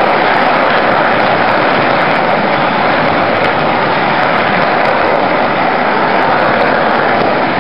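HO-scale model freight train rolling past close by, a steady rumble and rattle of the cars' wheels on the track.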